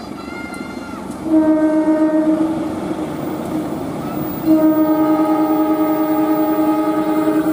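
GE CC 203 diesel-electric locomotive sounding its horn twice, a short blast of about a second and then a long blast of about three seconds. Under the horn, its engine and the train run with a steady rumble as it approaches.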